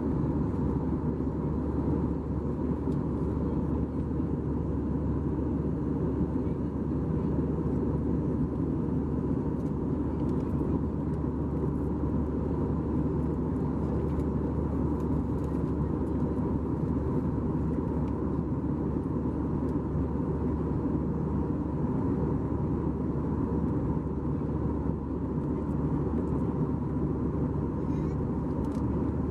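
Steady cabin roar of an Airbus A320-214 in flight, the noise of its CFM56 turbofan engines and the airflow heard from a window seat behind the wing, with a faint steady tone above the deep rush. The aircraft is beginning its descent.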